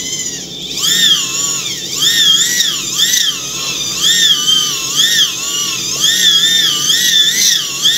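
A small 220 V, 4 W synchronous motor being spun by hand as a generator, giving a loud whine whose pitch rises and falls about twice a second with each turn of the shaft.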